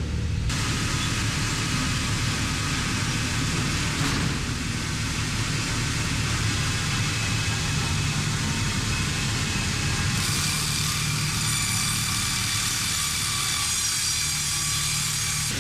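Heavy machinery running steadily: a continuous engine drone with several whining tones above it. The sound changes abruptly about half a second, four and ten seconds in, and gets higher and shriller after about ten seconds.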